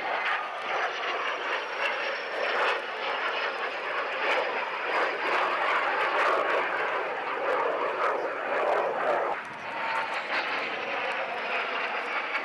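Military jet aircraft flying a display pass: a loud, steady jet rush with a faint high whine that slowly falls in pitch. The noise eases briefly a little after nine seconds in, then carries on.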